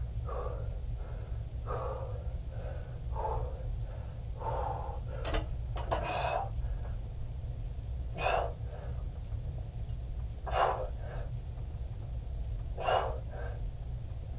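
A man breathing hard through a set of presses, with short forceful exhalations every one to two seconds, the breathing of someone straining and tiring under the weight.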